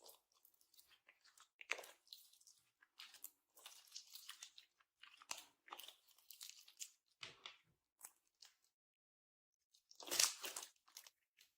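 Slime being squeezed and worked by hand, making irregular crackly squishing noises, with a pause of about a second before a louder burst near the end.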